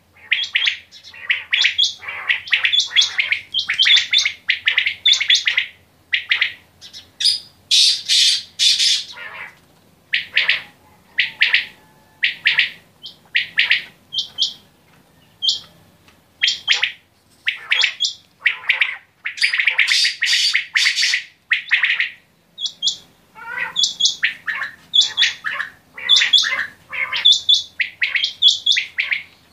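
Several caged common quails calling over one another: short, sharp, high-pitched calls repeated in quick runs, with brief pauses between runs.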